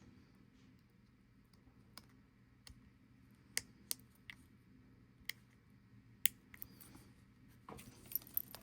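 Light, sharp clicks and taps, about eight of them spread over several seconds, as a watch strap is fitted with spring bars, with rustling handling noise building near the end.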